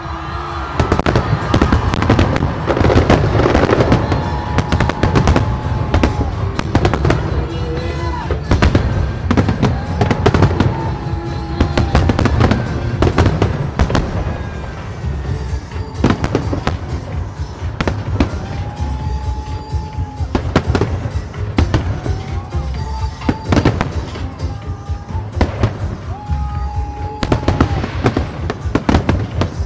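Fireworks display: a dense run of bangs and crackles, busiest in the first few seconds, with music playing underneath.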